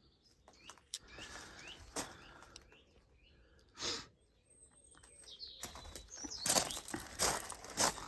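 Small birds chirping, with a brief whoosh near the middle. From about six seconds in, loud rustling and crunching starts and keeps going.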